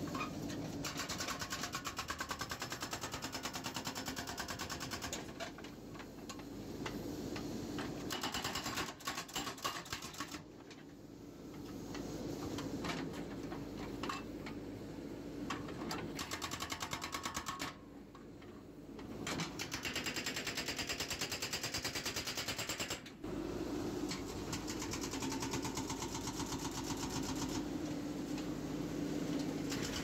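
Hydraulic breaker on a JCB 3DX backhoe loader hammering concrete in a rapid, even stream of blows, stopping briefly a few times, with the backhoe's diesel engine running steadily underneath.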